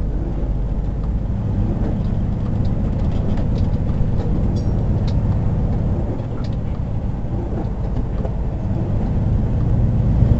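Class A motorhome on the move: a steady low engine and road rumble with faint scattered rattles, growing louder near the end.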